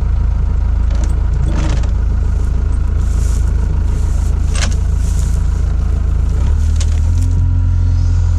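Hitachi hydraulic excavator's diesel engine running steadily with a low drone that steps up about six and a half seconds in, with a few short clanks and scrapes.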